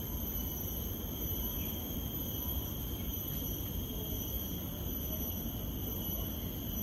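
Insects in tropical garden vegetation droning steadily in several high, even tones over a steady low rumble.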